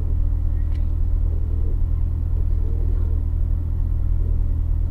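2015 Corvette Z06's supercharged 6.2-litre LT4 V8 idling steadily, a low-pitched, even sound heard from inside the cabin.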